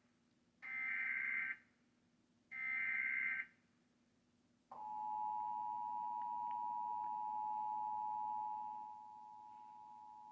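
Emergency Alert System test signal: the last two SAME header data bursts, each about a second of harsh screeching, then after a short gap the steady two-tone EAS attention signal starting about five seconds in, dropping in level about nine seconds in.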